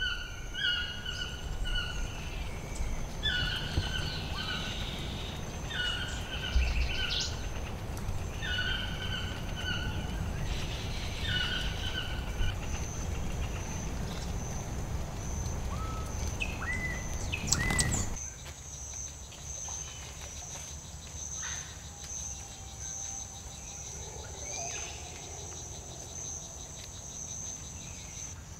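Tropical rainforest ambience. A bird gives a short call over and over, roughly one every second and a half, for the first dozen seconds. A steady high-pitched insect buzz runs through the second half, and the background noise drops suddenly about 18 seconds in.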